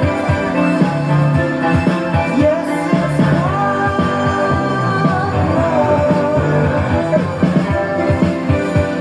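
A rock song with sung vocals and a steady beat.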